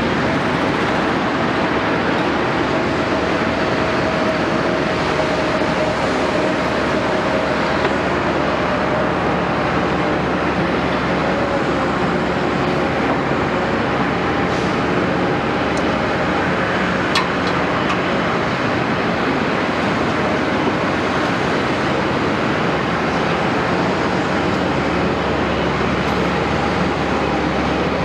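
An excavator's diesel engine and hydraulics running steadily and loudly, with a faint steady whine and one brief click about seventeen seconds in.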